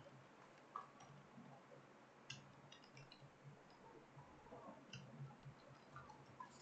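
Faint computer keyboard keystrokes: scattered, irregular clicks a second or so apart over a quiet room hum.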